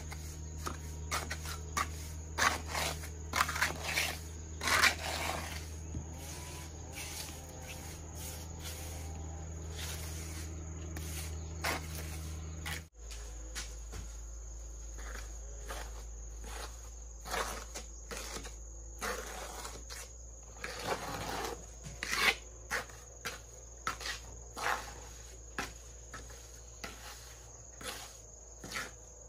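Insects, crickets among them, chirping steadily, with irregular light clicks and knocks of handling over them.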